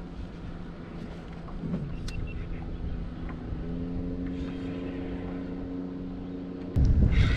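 A boat engine drones steadily on the river, growing a little louder about three and a half seconds in. A sudden loud noise breaks in near the end.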